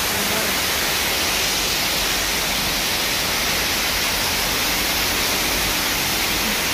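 Steady rushing of falling water from an artificial waterfall in a rock grotto, an even hiss without let-up.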